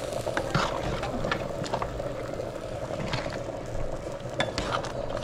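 Metal spoon stirring a thick pot of stew peas with dumplings, scraping and knocking against the metal pot at irregular moments, while the stew simmers and sizzles underneath.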